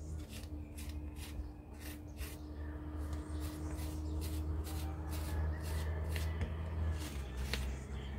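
A pottery rib scraping over the inside of a leather-hard clay bowl in quick, evenly repeated strokes, a few per second, scraping back the surface slip to reveal slip-inlaid (mishima) lines.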